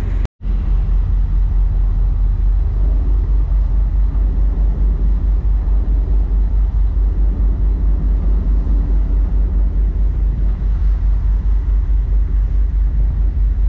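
Fishing party boat's engine running steadily underway, a deep throbbing drone with a regular pulse. The sound drops out for a moment just after the start.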